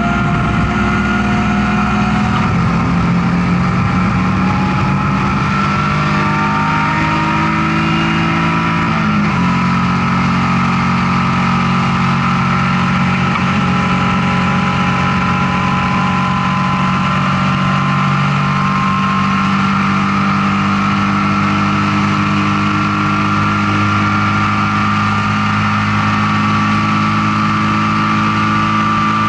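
BMW E36 M3's straight-six race engine heard from inside the stripped cockpit at full throttle: revs climb steadily, an upshift about nine seconds in drops the pitch suddenly, and it then pulls on at high revs, rising slowly for the rest of the stretch.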